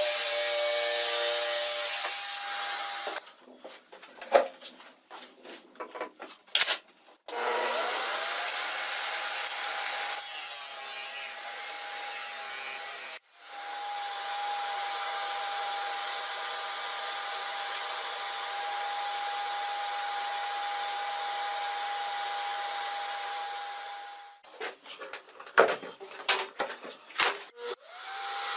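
A cordless DeWalt jigsaw cuts through a thin wooden board for about three seconds, followed by a few seconds of clicks and knocks as it is put down. A shop vacuum then spools up and runs steadily for most of the rest, with a brief break midway, sucking sawdust through a homemade plastic-pipe cyclone separator. Near the end there are more clicks and knocks, and the vacuum starts again.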